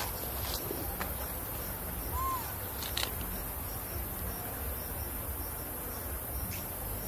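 Steady high-pitched drone of a forest insect chorus, with a low rumble underneath. A few faint clicks and one short rising-and-falling chirp come about two seconds in.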